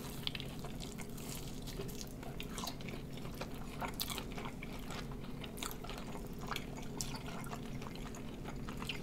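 Two people chewing sauced bone-in chicken wings close to the microphone: scattered wet mouth clicks and smacks over a steady low hum.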